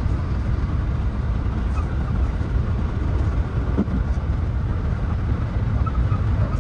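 Running noise of a 223 series 2000 electric multiple unit heard from inside the driver's cab: a steady, dense low rumble of wheels on rails.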